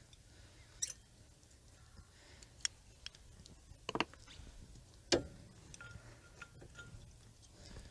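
A few scattered metallic clicks and knocks from disc brake pads being worked out of the caliper, the loudest about four and five seconds in.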